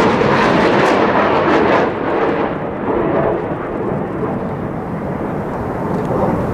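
Jet engine noise from an F-16 fighter passing close and flying away. The sharp high end fades about two seconds in, leaving a duller, steady noise that carries on.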